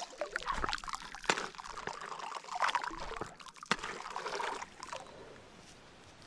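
River water splashing and trickling as it is stirred, with uneven splashes that die down after about five seconds.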